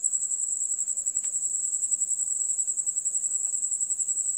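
An insect's high-pitched, steady trill, pulsing rapidly without a break.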